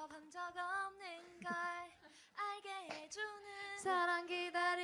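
A woman singing short phrases unaccompanied, several notes held steady at one pitch with brief breaks between them.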